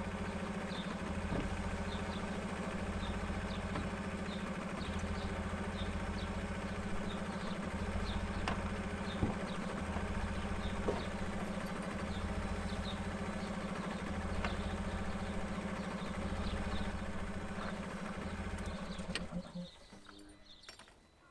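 Car engine idling with a steady hum and a low pulsing underneath, heard around the car's cabin; it cuts off suddenly near the end.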